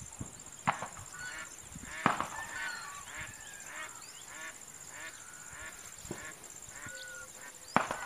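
Water birds calling from a pond: a scattered string of short calls, the loudest about two seconds in and just before the end, over a steady high thin whine.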